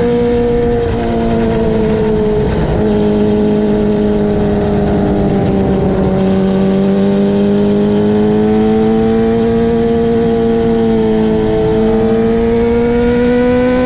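Kawasaki ZX25R's 250 cc inline four-cylinder engine running under way at fairly high revs. Its pitch eases down a little through the first half, then climbs slowly again toward the end.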